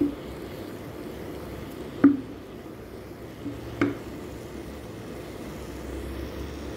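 Wooden spatula knocking and scraping against a frying pan of minced chicken: a few short knocks, the loudest about two seconds in, another just before four seconds, over a low steady background noise.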